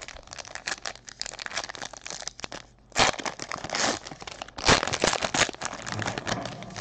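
Plastic and foil trading-card wrapping crinkling and tearing as a pack is opened, with dense crackling throughout and louder sharp tearing bursts about three seconds in and again near five seconds.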